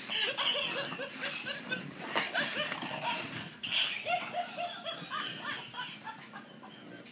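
Toy laughing dog playing its recorded laugh: several runs of quick, evenly spaced 'ha-ha-ha' syllables, quieter near the end.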